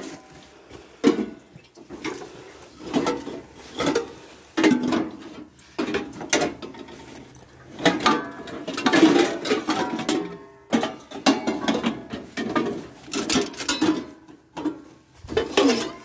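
Stainless steel cooking pots, kettles and lids clanking against one another as they are rummaged through in a pile, with irregular knocks and a few short metallic rings.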